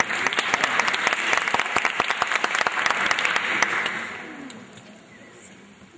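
Audience applauding, dying away from about four seconds in.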